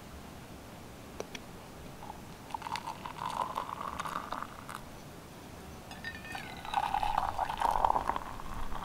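Hot milky tea poured from a metal camping kettle into two mugs. First a pour of about two seconds into a ceramic mug, then after a short pause a louder pour into a steel-lined insulated mug.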